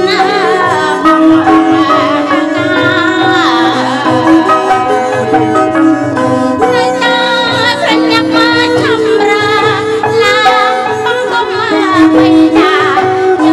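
Lakhon Bassac theatre song: a woman singing a wavering, ornamented melody over instrumental accompaniment with a steady beat.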